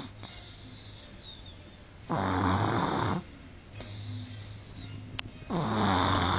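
An 18-month-old toddler snoring in sleep: two snores about three and a half seconds apart, each lasting about a second. A faint click comes a little after five seconds.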